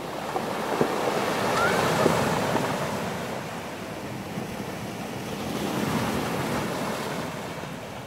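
Sea waves washing in shallow surf, swelling louder twice, with wind buffeting the microphone and a few small splashes.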